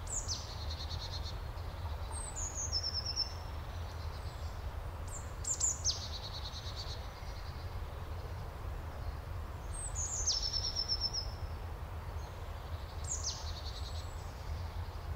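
A songbird singing the same short phrase over and over, each a quick falling sweep that runs into a high trill, repeated every few seconds, over a steady low rumble.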